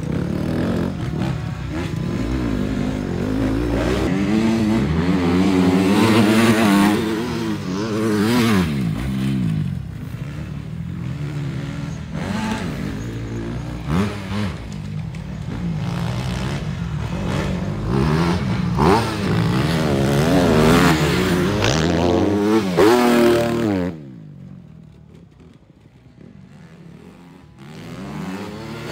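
Supermoto motorcycles' single-cylinder four-stroke engines revving hard, the pitch climbing and falling again and again as the riders work the throttle and shift through corners. About 24 seconds in the sound drops sharply to a faint hum for roughly three seconds, then the engines come back.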